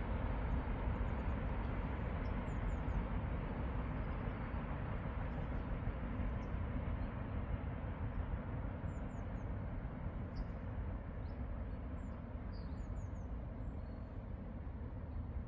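A train on the railway line drawing away, its steady rumble slowly fading. Small birds chirp briefly now and then above it.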